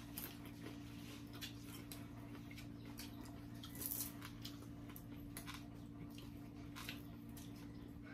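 Faint scattered clicks and taps of people eating a meal, with a slightly louder cluster about four seconds in, over a steady low hum.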